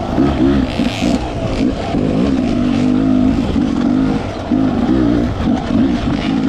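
Dirt bike engine revving up and down as the throttle is worked, the pitch rising and falling every second or so, with a steadier stretch in the middle.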